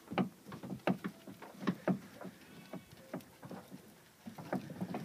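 Irregular light knocks and scuffs, a few a second at times, from a small fiberglass boat hull being handled and slid toward the water.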